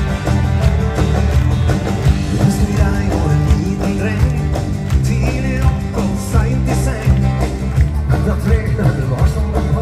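Live rock-and-roll dance-band music: electric guitars, bass, drums and keyboard playing at a steady beat, heard from the audience in a large arena.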